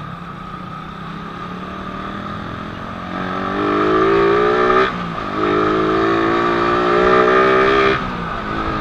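Suzuki Raider R150 carburetted single-cylinder motorcycle engine accelerating, heard from the rider's seat. It runs steadily at first, then the note climbs about three seconds in, drops briefly about five seconds in, climbs again and drops off near the end.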